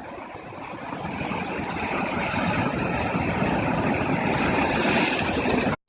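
Big sea waves breaking and surging over coastal rocks: a steady rush of surf that swells louder about a second in, then cuts off abruptly right at the end.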